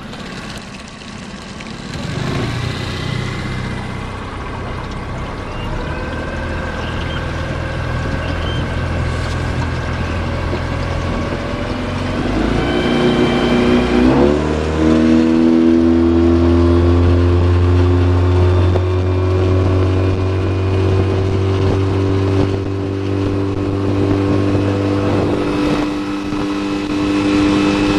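Yamaha 9.9 hp outboard motor throttling up and pushing the jon boat: the engine note builds over the first few seconds, rises in pitch about halfway through, then runs steadily at high throttle.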